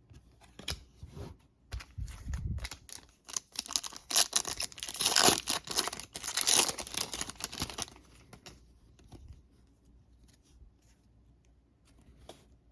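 Plastic wrapper of a trading-card pack being torn open and crinkled, loudest about four to eight seconds in, followed by faint ticks of cards being handled.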